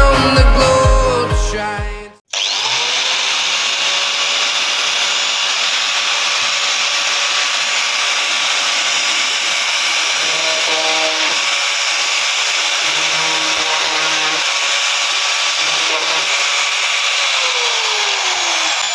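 Angle grinder fitted with a drill-chuck adapter running at full speed with a steady high whine, then winding down with falling pitch near the end.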